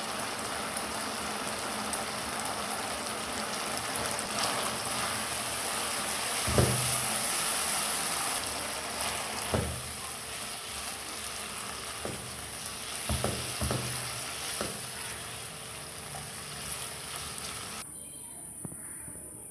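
Beef frying and sizzling in a hot pan: a steady hiss, with a few dull knocks, as of a utensil against the pan, in the middle. The sizzle's hiss cuts off sharply near the end, leaving a quieter sound.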